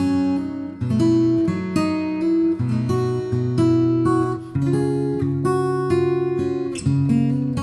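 Steinbock 000 acoustic guitar with an Indian rosewood body and Engelmann spruce top, played with the fingers: chords and melody notes plucked, a new chord struck about every half second to a second.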